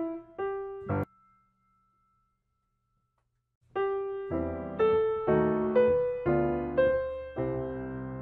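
Background piano music that breaks off about a second in, leaving near silence for about two and a half seconds before a new phrase of piano starts.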